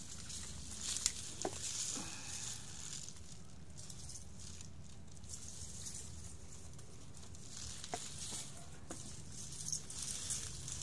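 Leaves rustling and crackling as hands lift and part a potted clump of long, spotted-leaf plants, with scattered small clicks.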